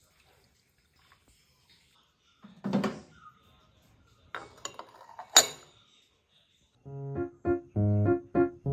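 Quiet household handling sounds: a dull knock, then a few small clicks ending in a sharp clink, like dishes or cutlery being set down. Piano music with repeated chords starts near the end.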